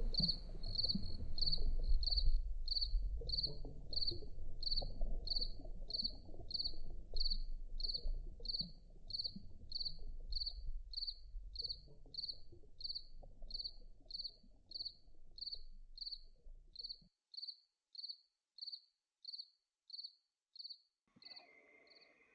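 A cricket chirping steadily, short high chirps about one and a half a second, over a low rumble that cuts off suddenly about three-quarters of the way through.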